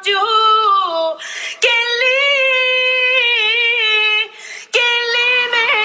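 A woman singing long, held notes in a high voice. Two short breathy sounds break the line between phrases, about a second and a half in and again about four and a half seconds in.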